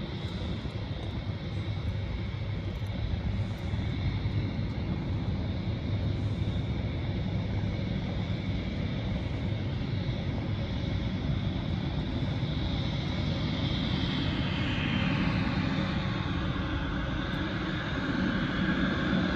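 Airliner engines after take-off, a steady rumble with a high whine that falls in pitch a little past the middle; the sound grows somewhat louder near the end.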